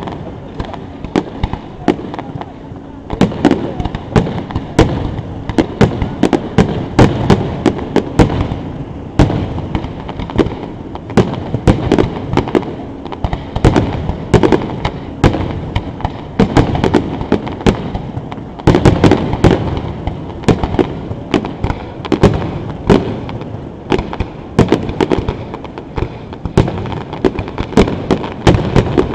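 Aerial fireworks display heard from close to the launch site: a dense, continuous run of loud launch and shell-burst bangs, several a second, without a pause.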